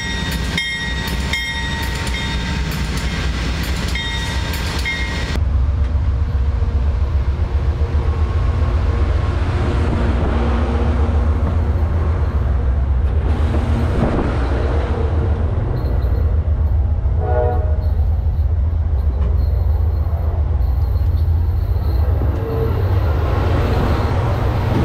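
Amtrak Superliner sleeping cars rolling directly over the track: a loud, steady low rumble of steel wheels on rail with clatter, and a short squeal about two-thirds of the way through. For the first five seconds, before the rumble sets in, there is instead a run of evenly spaced ringing metallic strikes.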